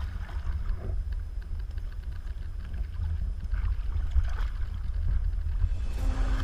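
Steady low rumble on a boat at sea, with water splashing against the hull as a hooked fish thrashes alongside. Music begins near the end.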